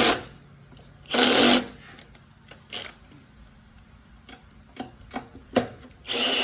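Cordless drill driving a hex-head screw through a socket extension, tightening the recoil starter housing on a lawn mower engine: a short run of the motor about a second in and a longer run near the end, with a few light clicks between.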